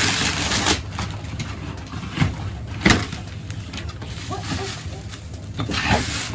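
Wrapping paper crinkling and tearing and a cardboard box being handled as a present is unwrapped, with a sharp knock about three seconds in.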